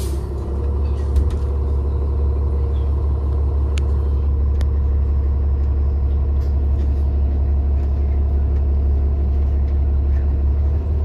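Cabin sound of a 2019 New Flyer XD40 Xcelsior diesel transit bus under way: a steady low rumble of engine and road, with a few light clicks and rattles.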